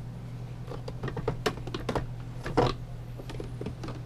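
Condiment bottles and jars clicking and knocking as they are handled and moved about in a refrigerator: a scatter of small clicks with one louder knock about two and a half seconds in, over a steady low hum.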